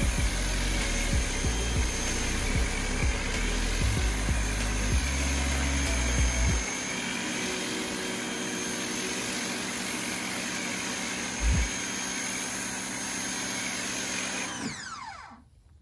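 Ryobi 1600 PSI electric pressure washer running through a foam cannon: a steady motor whine and spray hiss, with low rumbling bumps in the first half. Near the end the motor shuts off and winds down, falling in pitch.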